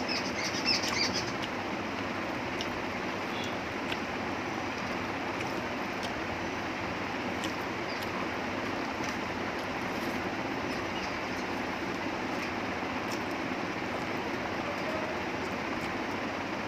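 Steady background hiss with faint, scattered clicks of rice being mixed by hand on a plate and chewed, and a brief high chirping sound in the first second.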